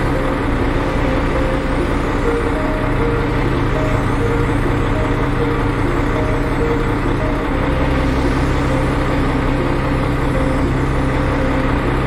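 Diesel engines of a Hitachi excavator and a Volvo articulated dump truck running steadily while the excavator loads the truck. The engine note shifts about two seconds in and again past halfway.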